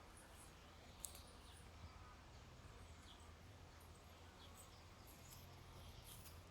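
Near silence: a faint steady low hum with scattered faint high ticks and one sharp click about a second in.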